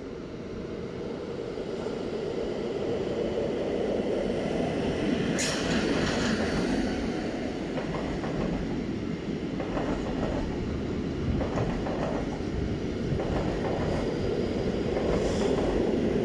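A train running over the station tracks and switches: a steady rumble that grows louder over the first few seconds, broken by brief high wheel squeals and clacks about five seconds in and again near the end.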